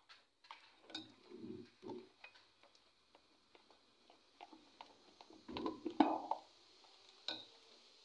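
Metal spoon stirring thick cake batter in a glass bowl: scattered clinks and taps of the spoon on the glass with short bouts of scraping, loudest about six seconds in.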